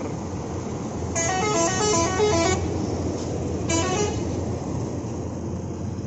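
Telolet horn on a passing mining dump truck playing a quick tune of stepping notes for about a second and a half, then a shorter burst of notes about a second later. The trucks' diesel engines run steadily underneath.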